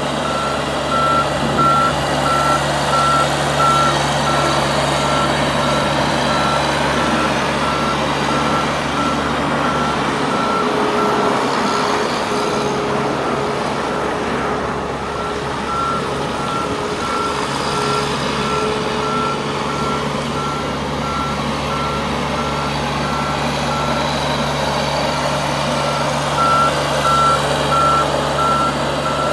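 New Holland LS150 skid steer engine running steadily while its backup alarm sounds a regular high-pitched beep. The engine note eases slightly in the middle and picks up again near the end.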